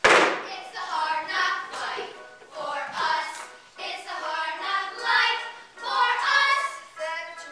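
A group of girls singing loudly together in a stage musical number, starting with a sudden loud hit.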